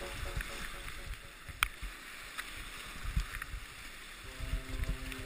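Rushing whitewater of a steep creek rapid heard from a kayak running it, with scattered low thumps and one sharp click. Music with a drum beat fades out at the start, and held musical notes come in about four seconds in.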